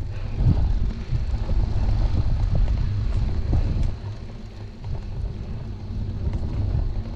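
Wind rumbling over the microphone of a camera riding along on a bicycle, mixed with road noise. It is a low, steady rumble that dips for a moment about four seconds in.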